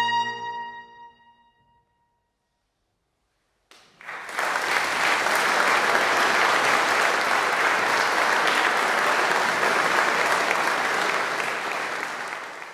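The final cornet note, with piano, dies away over about a second and a half. After a short gap, an audience breaks into steady applause, which starts to fade near the end.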